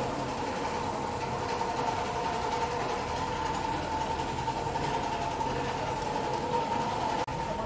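A steady mechanical drone: a low rumble with a hum of several steady tones, cut for an instant near the end.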